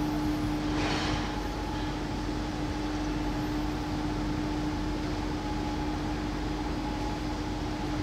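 Sotetsu electric train standing at the platform, its equipment giving a steady hum with two held tones, and a short hiss about a second in.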